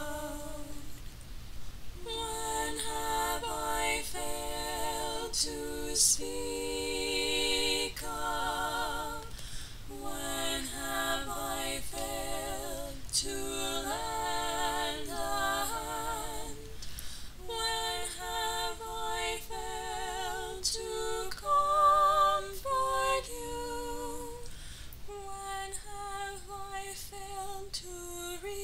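A woman singing a slow, unaccompanied melody with vibrato, in places with a second voice in harmony.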